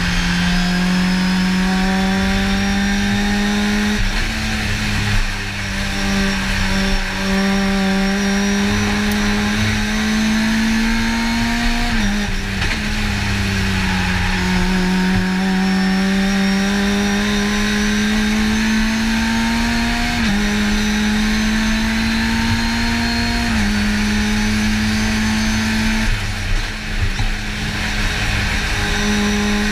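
Race car engine heard from inside the cockpit, pulling hard with a note that climbs slowly under load. The revs dip suddenly about twelve seconds in, again near twenty seconds, and once more a few seconds later.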